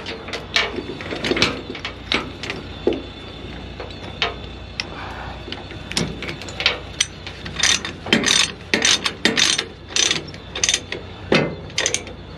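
Irregular sharp clicks and clanks of metal gear being handled, in quick clusters that come more thickly in the second half, over a low steady hum.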